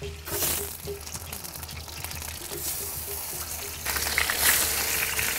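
Chicken pieces sizzling as they go into hot melted pork lard in a clay cazuela, crackling, and clearly louder from about four seconds in.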